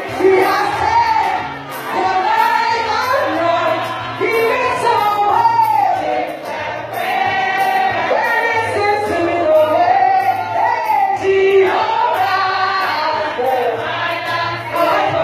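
Live Ghanaian gospel music played through the hall's sound system: a woman sings the lead with several voices singing along, over a bass line and a steady beat.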